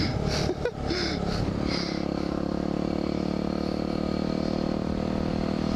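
Yamaha WR250R's single-cylinder four-stroke engine running under way. The pitch swings briefly in the first second or so, then holds a steady note.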